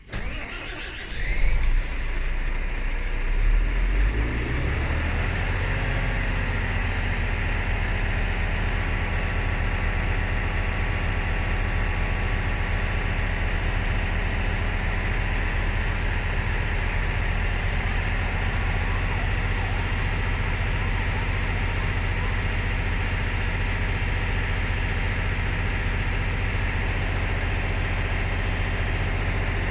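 Heavy diesel engine of a Volvo B9R bus coming in suddenly and building over the first few seconds, then running steadily at idle with a deep, even hum.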